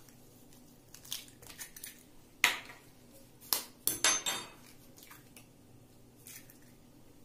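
Chicken eggs cracked one after another on the rim of a plastic mixing bowl. There are several sharp taps and shell cracks, the loudest about two and a half seconds in and a quick cluster about four seconds in.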